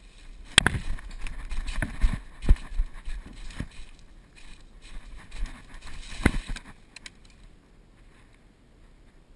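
Irregular knocks and thuds with rustling between them. The sharpest crack comes about half a second in and another about six seconds in, and it all dies away after about seven seconds.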